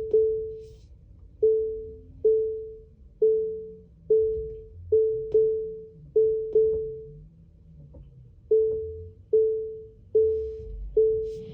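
Repeated thump inside a new Tesla Model 3's cabin at about 8-9 mph, each knock ringing briefly at the same mid pitch, coming roughly once every 0.8 s with an occasional extra hit, over a low road rumble. Its cause has not been found by Tesla.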